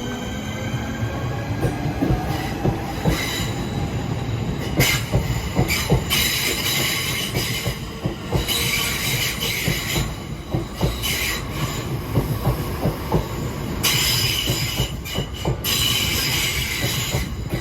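A Class 465 Networker electric multiple unit pulling away and running past. Its traction motors whine, rising in pitch near the start. Then wheels clack over the rail joints, with repeated bursts of high-pitched wheel squeal.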